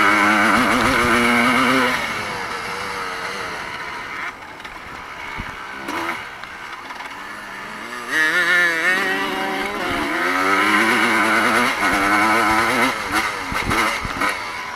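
Evo-class motocross bikes racing, their engines revving up and down with constantly rising and falling pitch. The bikes are loudest at the start and again from about eight seconds in, quieter in between.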